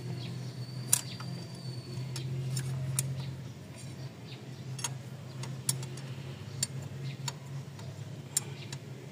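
Scattered sharp metallic clicks and taps of hand tools on the engine while working a stuck diesel injector loose, over a steady low hum; the loudest click comes about a second in.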